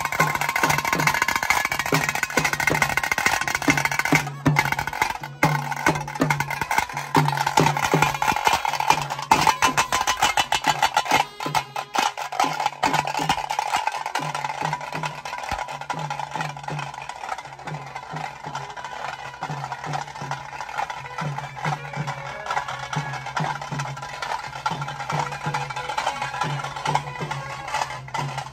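A procession drum troupe plays fast, dense rhythms on stick-beaten barrel drums over a steady held tone. The drumming thins out from about halfway.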